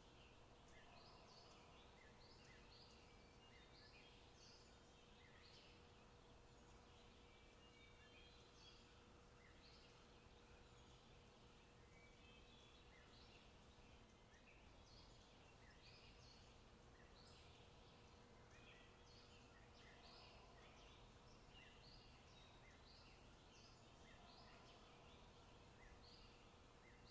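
Faint forest birdsong: many short chirps and twitters from several small birds, scattered throughout, over a quiet steady background hiss with a faint low hum.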